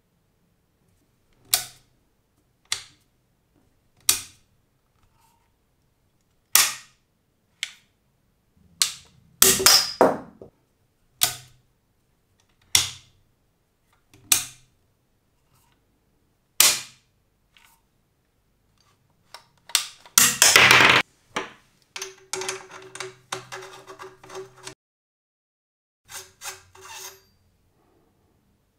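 Sharp metallic clicks of an over-and-under shotgun's tang safety and barrel selector being slid back and forth, about a dozen spaced a second or two apart. About two-thirds of the way through comes a longer, louder burst of metal handling noise, then a run of small rattling clicks.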